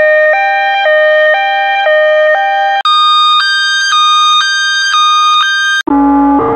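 Two-tone hi-lo ambulance siren sound effect, alternating between two steady pitches about twice a second. It is played in three versions: the first, a higher-pitched one from about three seconds in, and a lower, buzzier one near the end, each switch cut abruptly.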